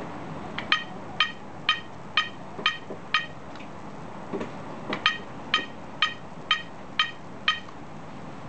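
Bicycle turn-signal controller beeping in time with the flashing indicators, about two short electronic beeps a second. Two runs of six beeps, each started by a click of the controller's button.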